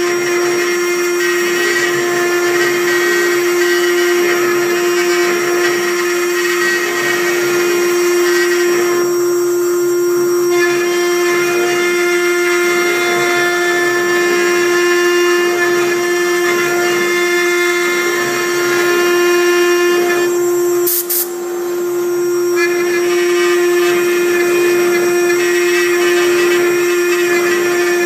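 A 6090 CNC router's spindle engraving MDF with a fine bit: a steady high whine under the rasp of the bit cutting. The cutting noise thins out twice, about a third of the way in and again about three quarters in, while the whine carries on, with a brief dip and click at the second break.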